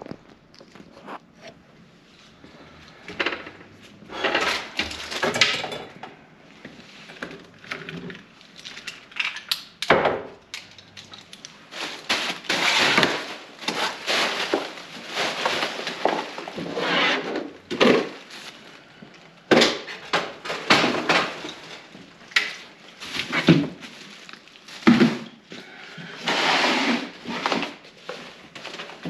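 Irregular knocks, clunks and scraping of things being handled and moved about, some sharp, some longer and rustling.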